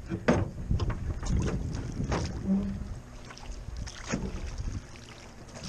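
Oars working in the metal oarlocks of an aluminium rowboat: repeated knocks and clunks as the oars are pulled, with water swishing, and a short creak about two and a half seconds in.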